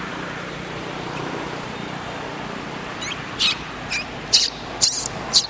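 Baby pig-tailed macaque screaming in a series of short, high-pitched shrieks, about two a second, starting about three seconds in, over a steady background hiss.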